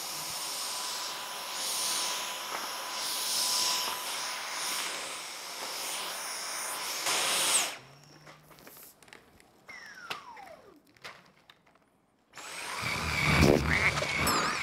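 Cordless stick vacuum cleaner running with a steady whine for about eight seconds, then switched off abruptly. After a near-quiet pause, a louder sound with wavering whistle-like tones starts near the end.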